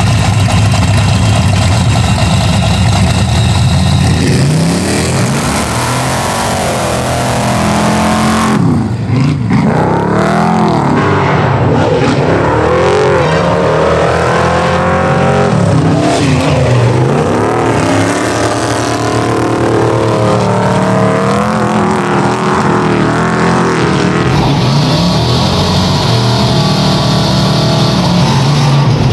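High-horsepower off-road race vehicle engines running loudly. From about eight seconds in they rev hard, their pitch rising and falling again and again as the vehicles race.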